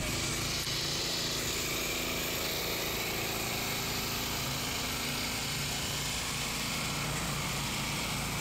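An engine running steadily, a constant low hum over broad outdoor noise, with no pauses or sudden sounds.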